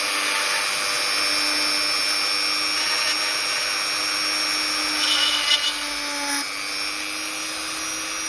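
Small electric drill running steadily at high speed with a whine, boring into a doll's hard polystyrene torso. About five seconds in, a brief rougher rasping joins the whine as the bit cuts through the plastic.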